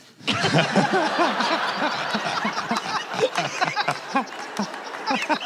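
Live audience laughing, a burst of crowd laughter that breaks out suddenly just after the start and carries on.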